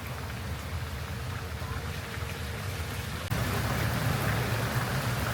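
Golf buggy driving along: a steady low rumble of motor and tyres under a rain-like hiss. It gets abruptly louder about three seconds in.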